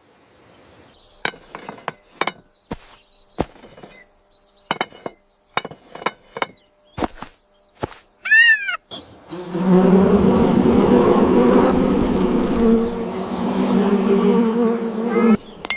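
Scattered sharp knocks and taps, a short warbling chirp about eight seconds in, then a loud, steady, low buzzing drone for about six seconds that cuts off near the end.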